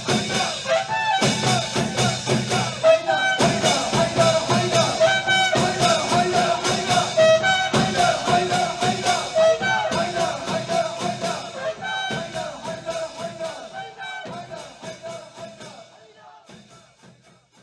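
Music: a brass melody over a steady drum beat, fading out over the last few seconds.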